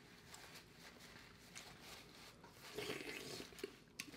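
Faint eating sounds: chewing and fingers picking through saucy boiled corn and potatoes in a glass bowl, with a few small clicks and smacks, a little louder about three seconds in.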